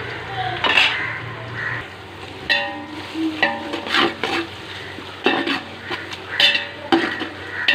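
A spoon stirring and scraping in a deep pot of onions frying in oil with the ground spice paste, the food sizzling throughout, with several sharp clinks of the spoon against the pot.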